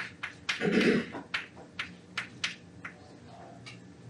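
Chalk on a chalkboard as figures are written: a string of short, sharp, irregular taps and clicks. A brief low sound about half a second in is the loudest thing.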